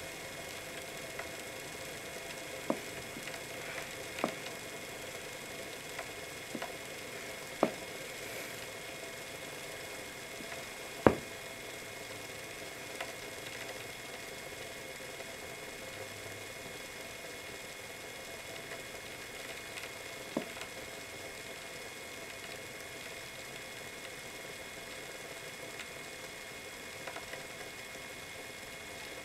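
Longboard wheel spinning freely on Bones Reds bearings, freshly cleaned with paint thinner: a steady whir, with a few sharp clicks scattered through it, the loudest about eleven seconds in.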